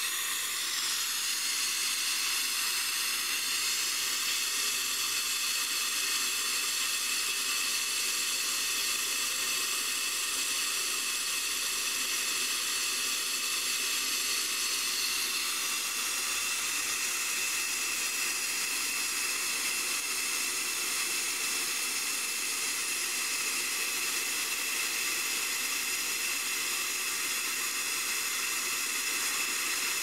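Hitachi PA2000VH inverter air compressor running steadily: a hiss with a high, steady whine over it. The tank is being charged, just below its top pressure.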